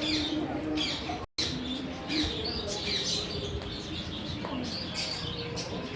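A crowd of small birds chirping, a steady stream of short, quick, falling chirps, as in a zoo aviary. The sound cuts out completely for a moment a little over a second in.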